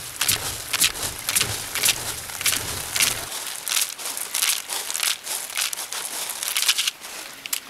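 Irregular crinkling and rustling as something is handled, made of many short crackly bits. A low rumble runs under it for the first three seconds or so.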